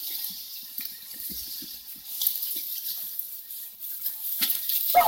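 Footsteps crunching and shuffling through dry leaf litter and brush, with small crackles and twig snaps over a steady rustling hiss. Right at the end a short, high, slightly falling cry begins.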